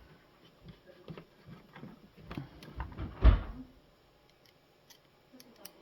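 Small clicks and knocks of a screw being fitted into a De'Longhi coffee machine's plastic housing, with one louder knock about three seconds in.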